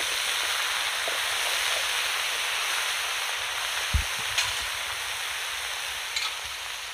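Chopped bottle gourd sizzling in hot oil in a kadai, a steady hiss that eases slightly toward the end, with a single dull thump about four seconds in.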